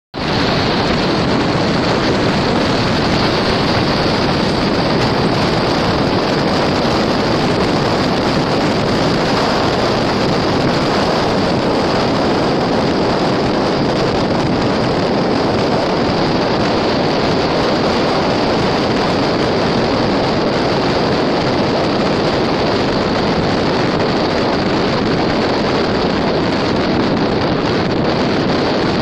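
Car driving at a steady speed: an even rushing of tyre and wind noise that holds unchanged throughout.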